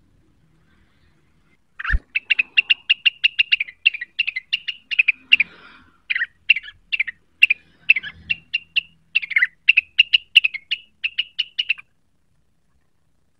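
Rengganis songbird singing a fast run of sharp, high chip notes in the ticking 'neritik' style, about five or six notes a second. It starts about two seconds in and stops shortly before the end.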